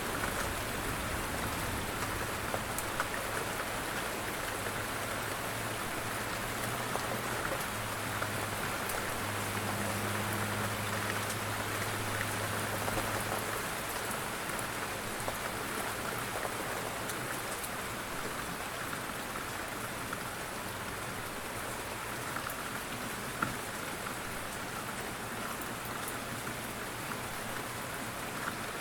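Steady light rain falling, with scattered sharp drop ticks. A low hum sits under it for about the first half.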